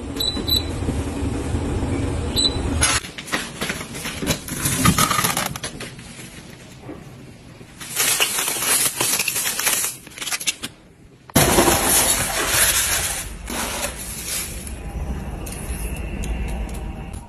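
Electric glass kettle's control panel giving a few short beeps as its buttons are pressed, then loud crinkling of a thin plastic bag being rummaged through.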